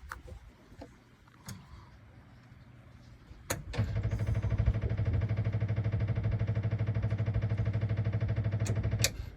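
Suzuki DF40A four-stroke outboard's electric starter cranking the engine for about five seconds, with an even pulsing and no sign of it catching: the engine will not start. A click comes as the cranking begins and another as it stops.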